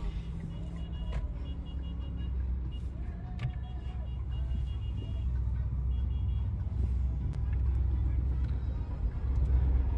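Car driving: a steady low rumble of engine and road noise that grows slightly louder toward the end.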